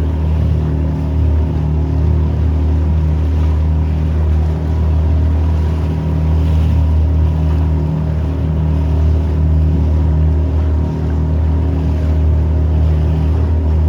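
Motorboat engine running at a steady speed under way, a constant low drone with rushing water and wind.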